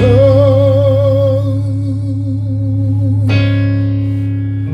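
A man's voice holding one long sung note with vibrato over a sustained keyboard chord with a low bass note. A little over three seconds in, the voice stops and a new keyboard chord is struck.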